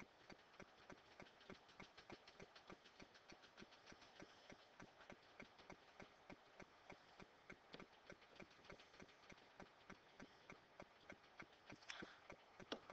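Faint, even ticking, about three ticks a second, in near silence, with a brief soft rustle about twelve seconds in.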